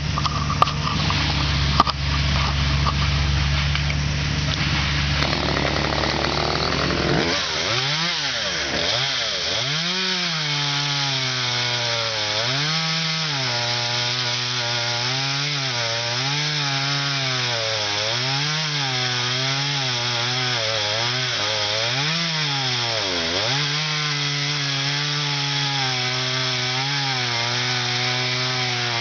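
Top-handle chainsaw making the back cut through a pine trunk to fell it. After a steady drone in the first seven seconds, the saw's pitch repeatedly sags and recovers as it loads up in the wood.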